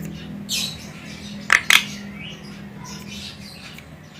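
Javan myna calling: a downward-sliding whistle about half a second in, then two short, sharp, harsh squawks close together, with faint chatter between, over a low steady hum.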